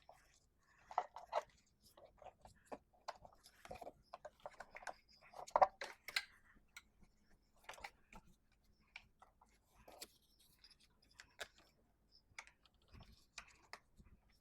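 Light, irregular clicks and small knocks of parts being handled and fitted while working on a lawn mower engine.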